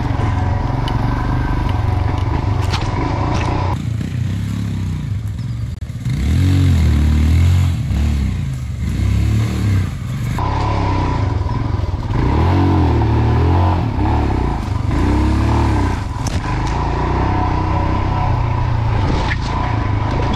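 Single-cylinder motorcycle engine being ridden hard over rough dirt, its revs rising and falling again and again, with the surges loudest in the middle and latter part.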